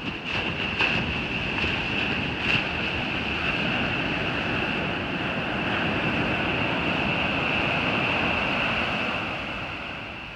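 Ocean surf washing onto a beach, swelling and then fading near the end, with a steady high-pitched tone above it and a few clicks in the first couple of seconds.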